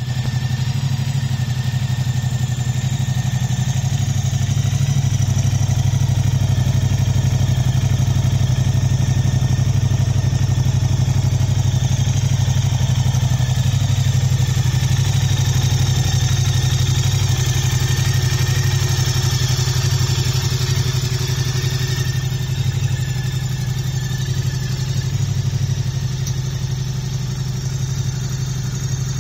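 2024 Moto Guzzi V100S's 1042 cc transverse V-twin idling steadily.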